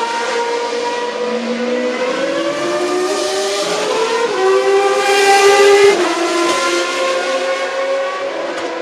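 Race car engine at high revs: its pitch climbs over a couple of seconds, holds, then shifts about six seconds in. It is loudest around five to six seconds in.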